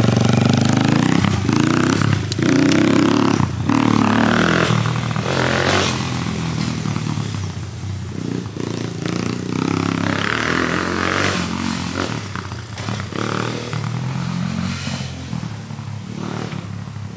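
Small youth dirt bike engine running, then revving up and down as the bike pulls away along the dirt track, growing fainter as it gets farther off.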